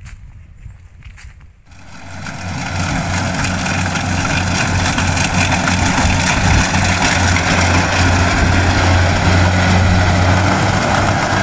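A few faint footsteps on a dirt path, then from about two seconds in a rice combine harvester's engine and threshing machinery running steadily under load while it cuts and bags rice, with a strong low hum.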